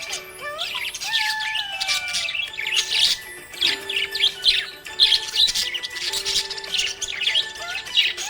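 Budgies chirping and twittering rapidly in a dense, continuous chatter over background music with a held, gliding melody.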